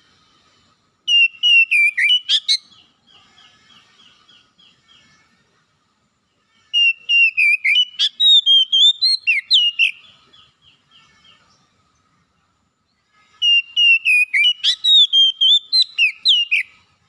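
Oriental magpie-robin singing: three loud phrases of rapid, varied whistled notes, each lasting two to three seconds, with quieter twittering between them.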